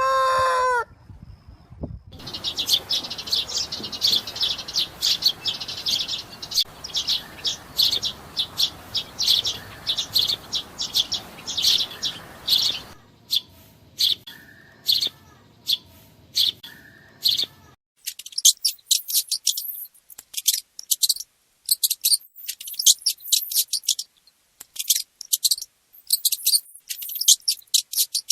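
The tail of a rooster's crow, then a long run of rapid, high-pitched chirping from small birds across a few separate recordings. The chirps are dense over background noise until about halfway, then sparser, then quick and very high on a quiet background.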